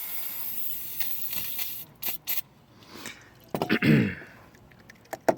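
Aerosol brake cleaner spraying into a lock cylinder to flush out gummed oil and dirt: a steady hiss for about two seconds, then two short bursts. About three and a half seconds in comes a brief, louder sound that falls in pitch, and a few clicks follow near the end.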